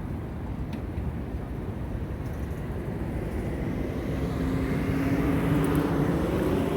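Street traffic: steady road noise, with a vehicle's engine hum growing louder from about halfway through as it comes closer.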